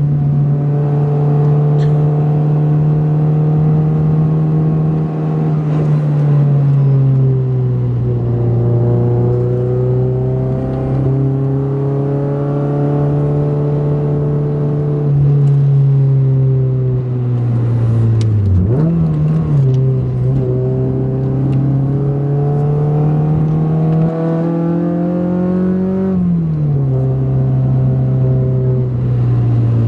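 2008 Honda Civic Si's 2.0-litre four-cylinder engine, breathing through a catless race header and a race cat-back exhaust, pulling hard on a winding road. The engine note climbs slowly and drops sharply several times as gears change.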